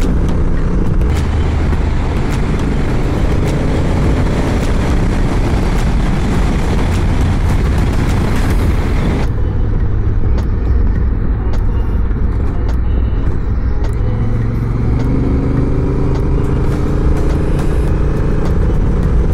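Adventure motorcycle engine running while riding a loose gravel road, under a hiss of wind and tyre noise with scattered clicks. About halfway through the hiss drops away sharply, leaving mostly the engine, which rises in pitch over the last few seconds as the bike picks up speed.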